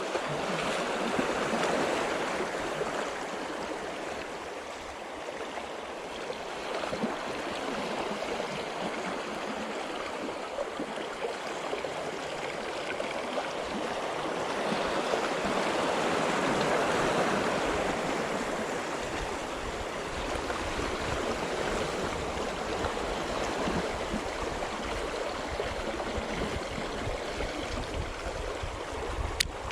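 Sea water washing in on the shore as the tide rises, a steady rush that swells and eases slowly. A single sharp click near the end.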